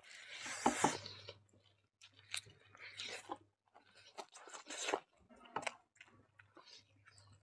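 Two people chewing chicken curry, rice and fresh greens close to the microphone: irregular wet smacks and crunches in short clusters, loudest in the first second.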